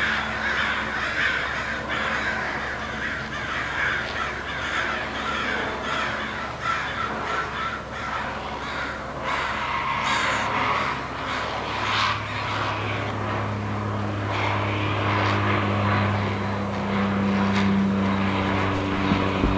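A chorus of crows cawing and great blue herons calling from the colony, raised in alarm by a bald eagle at a heron nest. A low, steady engine drone comes in about two-thirds of the way through and grows louder toward the end.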